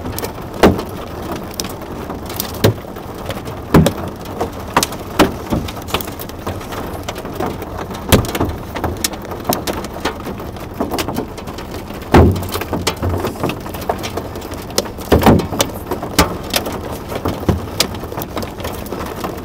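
Heavy thunderstorm downpour hissing steadily on a road and a parked car, with irregular sharp knocks of hailstones striking close by.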